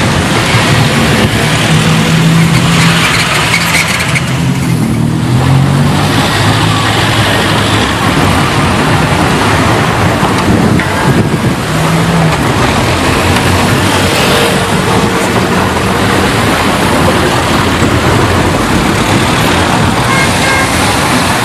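City street traffic: cars and other motor vehicles passing continuously, with the low hum of nearby engines rising a few seconds in and again about halfway through.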